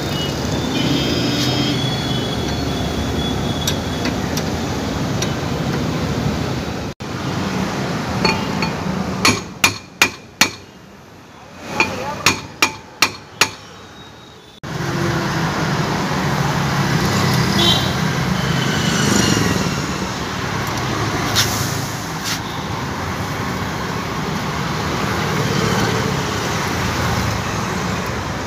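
Steady street traffic noise, broken midway by about nine sharp metal strikes in two quick runs: a hammer driving a steel rod against the rear brake drum hub of a Bajaj auto rickshaw.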